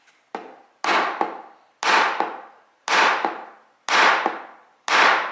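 A series of sharp strikes, about one a second, six in all, each starting suddenly and dying away over most of a second.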